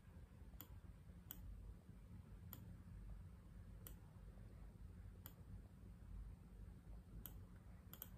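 Faint computer mouse clicks, about seven spread irregularly, over quiet room tone.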